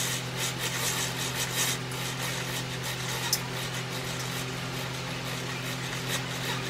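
Korean zebra roller blind being lowered by its pull cord, with faint scattered clicks of the cord and roller, over a steady low mechanical hum.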